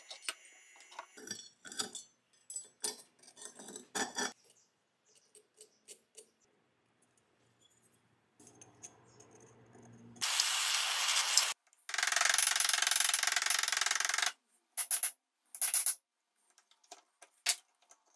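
Small hammer tapping the dents out of an antique bell's thin plated metal dome over a steel stake: scattered sharp metallic taps and clicks, with two longer stretches of dense, continuous metal noise in the middle.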